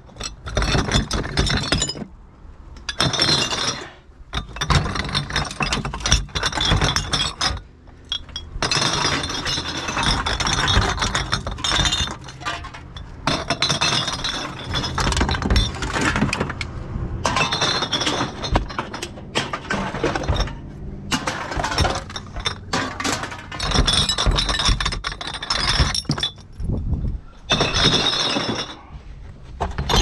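Glass bottles and jars clinking and knocking against each other and the plastic walls of a wheelie bin as they are lifted out one by one, with brief pauses between handfuls.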